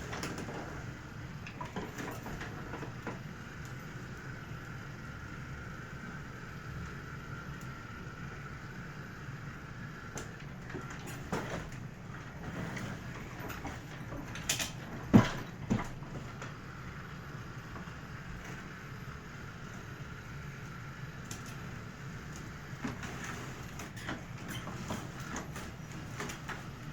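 Roomba robot's drive motors running slowly with a steady hum and a whine that swells and fades, with scattered clicks and a sharp knock about halfway through.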